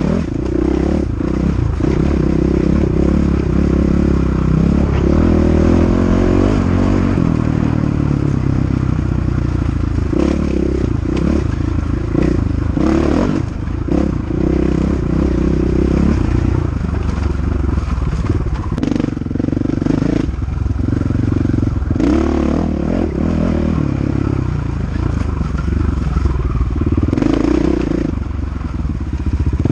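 KTM 500 EXC single-cylinder four-stroke dirt bike engine revving hard under race load, its pitch climbing and dropping again and again through the gears, with scattered sharp knocks and clatter.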